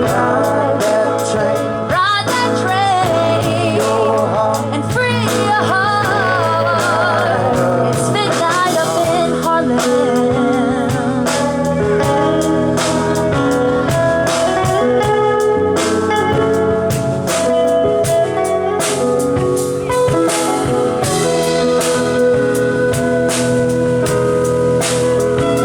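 Live soul band playing. A singer holds wavering, vibrato-laden notes for several seconds near the start, then the instruments carry on with steady chords over regular drum-kit hits.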